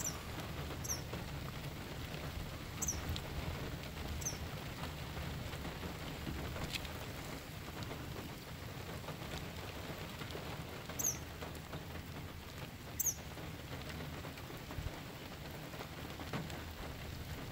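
Steady rain patter, with a few short, high bird chirps dotted through it.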